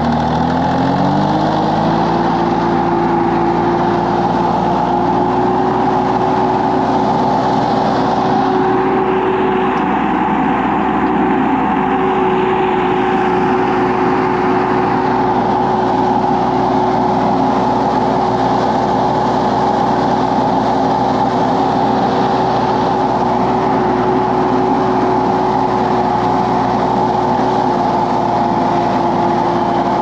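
Tractor engine running while the tractor drives. It revs up over the first couple of seconds, holds a steady speed, then eases back slightly near the end.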